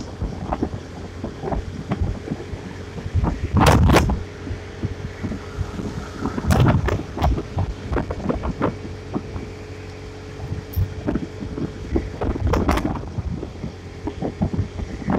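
Wind buffeting the microphone on a moving motorcycle, coming in loud gusts three times, over the steady hum of the engine and road noise.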